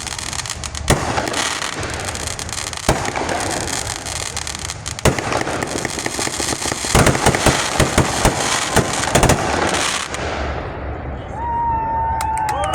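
Fireworks going off in a display: single loud bangs a couple of seconds apart, then a rapid run of crackling reports. The burst noise dies away about ten seconds in.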